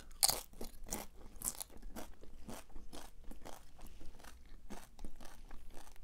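Tortilla-chip nachos being bitten and chewed: a run of crisp crunches, several a second, the loudest near the start.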